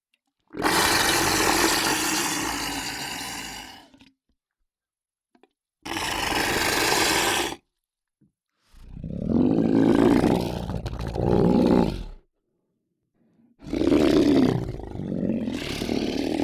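Large creature roars from a monster sound-effects library: four separate roars with short silences between them. The first is the longest at about three and a half seconds, and the last two are deeper.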